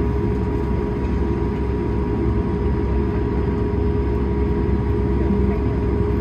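Airbus A220-300 taxiing after landing, heard inside the cabin: its Pratt & Whitney PW1500G engines at idle give a steady low rumble with a constant hum in it.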